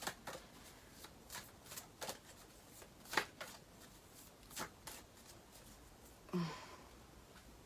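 A deck of cards being shuffled by hand: a string of light, irregular card snaps and rustles. A short voiced murmur comes about six and a half seconds in.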